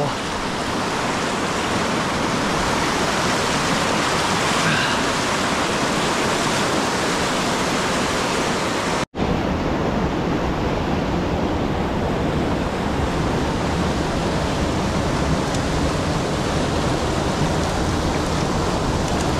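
Steady rush of flowing stream water. The sound cuts out for an instant about nine seconds in, then carries on with a little more low rumble.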